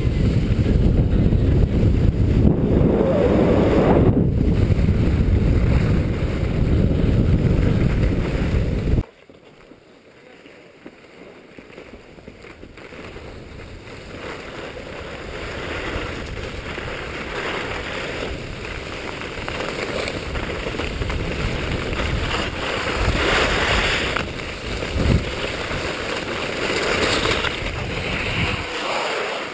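Wind rushing and buffeting on the camera's microphone during a downhill ski run, with skis scraping and hissing over packed snow. The loud low rush cuts off suddenly about nine seconds in, then builds back up steadily as speed picks up again.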